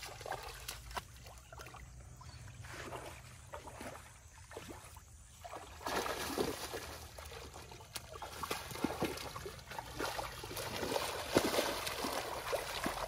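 Splashing and sloshing of shallow muddy water as a person wades and grabs at fish with bare hands. Quieter at first, it grows louder about halfway through, with several sharp splashes as he lunges into the water.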